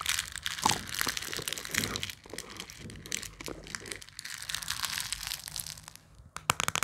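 A plastic screw-on lid being handled and twisted onto a jar: scratchy scraping and small clicks as the cap turns and fingernails rub it. A quick run of sharp clicks comes near the end.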